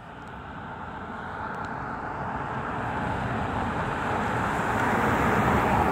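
A car driving closer along a wet street, the tyre and engine noise growing steadily louder and peaking near the end.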